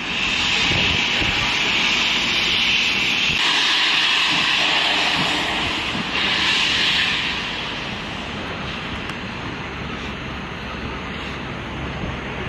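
NZR J class 4-8-2 steam locomotive J1211 hissing loudly as steam blows out at its front end near the cylinders. The hiss eases off to a quieter, steady hiss after about seven and a half seconds.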